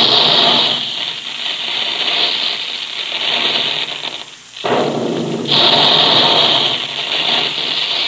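The big puffing guns of the Quaker cereal plant firing to explode grain into puffed wheat and puffed rice. There are two long bursts of rushing noise: the first fades out a little past halfway, and the second starts suddenly soon after.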